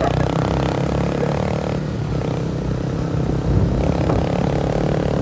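Motorcycle engine running steadily while riding, with some road and wind noise.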